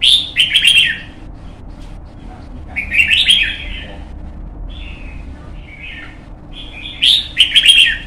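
Red-whiskered bulbul singing: three loud, quick warbled phrases, one at the start, one about three seconds in and one near the end, with softer short calls between.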